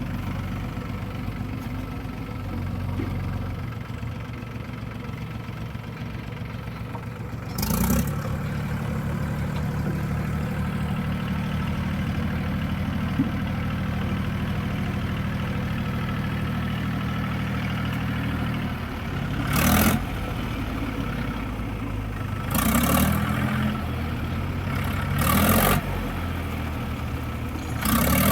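A diesel engine running steadily, its note firming up about eight seconds in. Over it come five short, loud, noisy bursts: one about eight seconds in and four close together in the last ten seconds.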